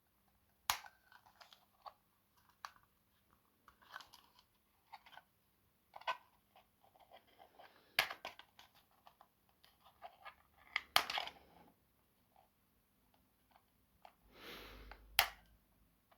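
Hands working at plastic toy packaging to free a car: scattered sharp clicks and snaps with short rustles and scrapes, the loudest clicks about a second in, near the middle, and near the end.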